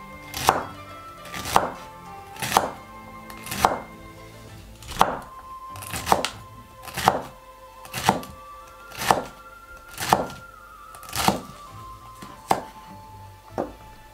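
Chef's knife slicing through a celery stalk onto a wooden cutting board, one crisp chop about once a second, over soft background music.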